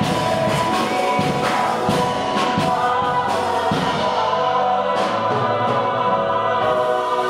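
Live musical-theatre number: singing over a small stage band of keyboard and bass guitar. Sharp percussive hits mark the first few seconds, then long notes are held from about five seconds in.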